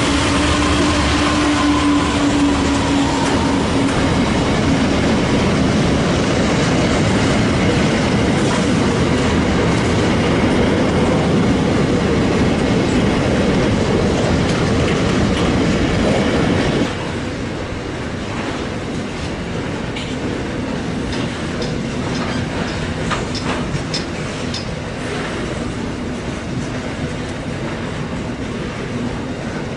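Freight wagons rolling past close by: a steady rumble of wheels with clickety-clack over rail joints. About seventeen seconds in, the sound drops abruptly to a quieter passing of container wagons, with scattered sharp clicks and faint wheel squeals.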